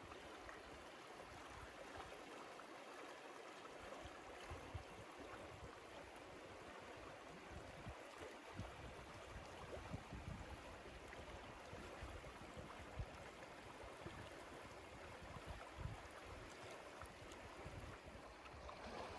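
Faint, steady outdoor background rush, with a few soft low bumps scattered through it.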